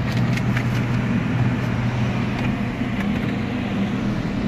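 Steady low drone of a bus engine heard from inside the passenger cabin, with a few light clicks in the first second.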